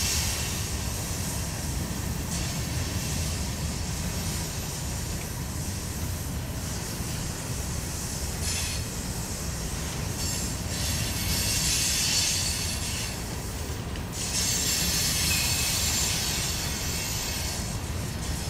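Empty covered hopper cars of a freight train rolling past with a steady low rumble of wheels on rail. High-pitched squealing and screeching from the wheels on the curve comes and goes, loudest around 11 and 15 seconds in.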